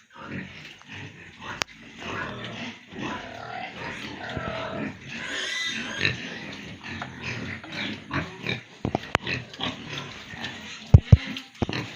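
Pigs grunting and squealing, with a few sharp knocks, the loudest two close together near the end.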